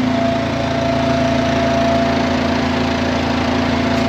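An engine running at a steady, unchanging speed, a constant hum with no revving.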